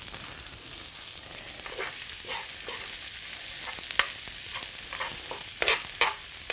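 Mackerel fillets, oats and scallions frying in butter and bacon fat in a hot pan: a steady sizzle. A metal spoon stirs the oats, scraping and clicking against the pan from about two seconds in, with a few sharper clicks later on.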